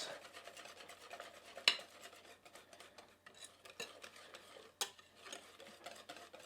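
Wire whisk stirring pancake batter in a mixing bowl, a steady faint scraping with a few sharp clinks against the bowl, the loudest about a second and a half in.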